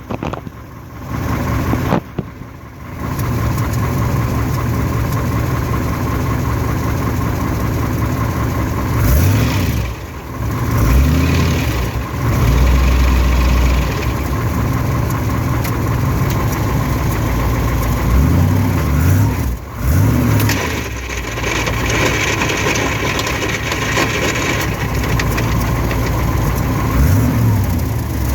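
Engine of a vehicle with a GM Turbo-Hydramatic 400 (TH400) automatic transmission running, its pitch rising and falling in short revs three times, with the grinding noise the owner blames on the TH400.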